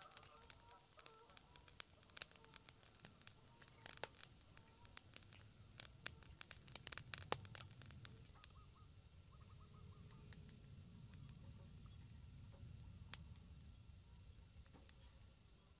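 Faint crackling from chicken feet grilling over charcoal, with scattered sharp pops, the loudest a little past the middle. Faint steady chirping of birds and insects behind it.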